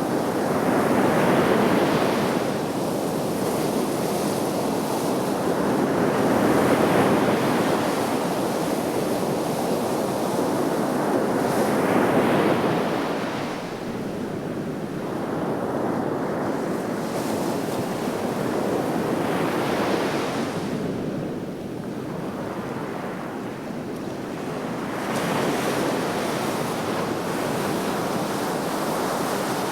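Sea waves breaking and washing up the shore, the surf swelling and ebbing again with a new wave every five to eight seconds.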